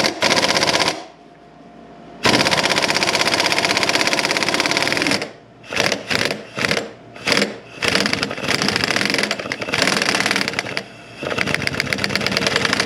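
Power impact wrench hammering away at a 19 mm transmission mount bolt, loosening it in short bursts and longer runs of about two to three seconds, with brief pauses between them.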